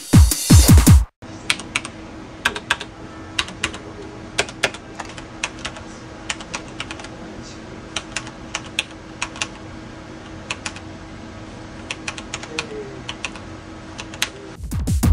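Typing on a DASK3 Ultimate mechanical keyboard with Cherry MX Brown switches: irregular key clicks, a few a second, over a faint steady hum. Electronic music plays for about the first second and comes back near the end.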